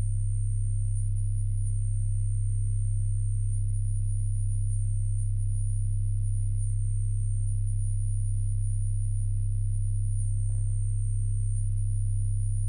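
Organ holding a deep, steady bass drone of very low pure-sounding tones that does not change, with a thin high tone sustained above it.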